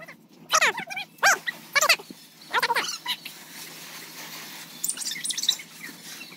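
Dog barking: four short barks, each falling in pitch, in the first three seconds. Faint high chirping follows about five seconds in.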